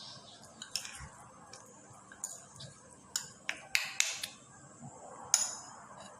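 Kitchen utensils and dishes clinking and knocking in scattered light strikes, with a quick cluster of sharp clinks about three to four seconds in and one more near the end.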